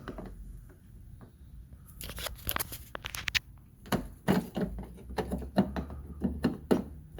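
Sharp clicks and rattles of hand-tool work on a car door handle as the replacement part is fitted and screwed in, starting about two seconds in and turning into a run of clicks about three a second.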